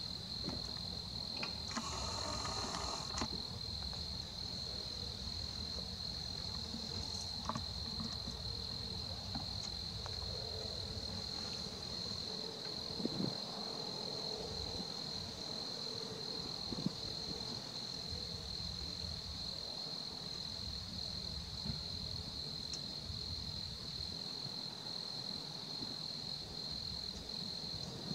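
Crickets trilling steadily at night in a high, unbroken chorus, over a low rumble of outdoor background noise. A short burst of rustling noise comes about two seconds in.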